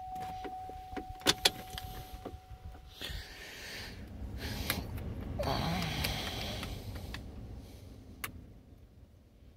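In the cabin of a 2002 Oldsmobile Bravada, a steady electronic warning tone sounds for about three seconds, broken by a few sharp clicks. After that comes a soft whir and hiss that fades near the end.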